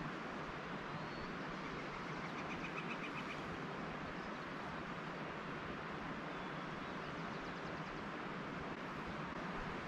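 Steady outdoor background hiss with a few faint bird calls: a short quick trill about two and a half seconds in and brief chirps later on.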